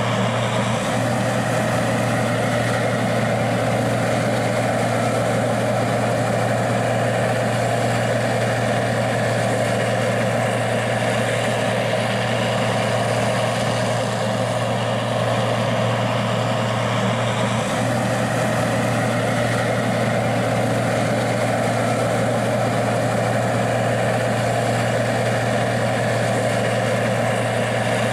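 Gleaner R60 combine running steadily at a constant speed, a continuous even engine drone with no change in pitch or load.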